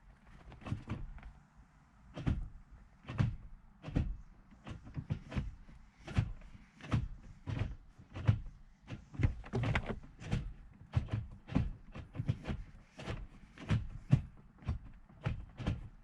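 Ford Focus ST manual gear shifter being moved through the gears with the engine off, giving a run of sharp clunks and clicks, roughly one or two a second. The shift cables still sit in their stock bushings.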